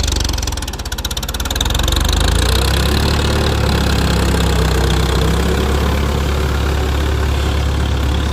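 Diesel tractor engine running loud through a modified silencer. The engine note dips briefly about a second in, then rises and holds steady.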